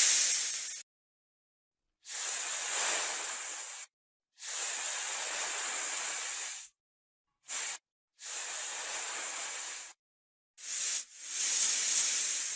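Snake hissing: a series of breathy hisses, most lasting one to two seconds, with one very short hiss partway through, each separated by a gap of silence.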